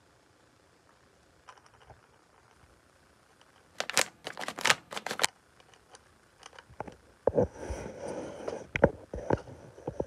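Crinkling and rustling of plastic packaging being handled, mixed with light knocks, in two bursts: a sharp crackly one about four seconds in and a longer one from about seven seconds.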